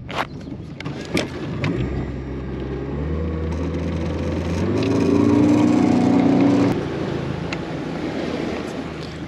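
Boat's outboard motor throttling up to get the aluminum bass boat moving, its pitch rising and its sound growing louder for several seconds, then easing back about two-thirds of the way through. A couple of knocks come in the first second or so.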